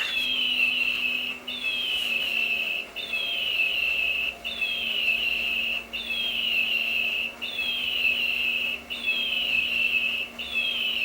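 Battery-powered toy bird giving its electronic chirp: a short, high, falling whistle repeated evenly about every second and a half, with a faint steady hum underneath.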